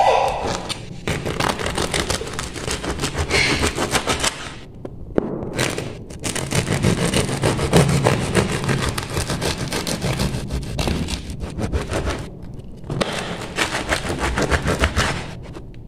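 Knife sawing back and forth through the crisp, crackly crust of a freshly baked loaf on a wooden board: rapid crunching and scraping strokes, in three runs with two short pauses.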